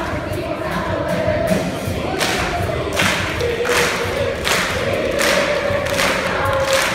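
A children's school choir singing held notes, with a steady percussive beat coming in about two seconds in, roughly one stroke every three-quarters of a second.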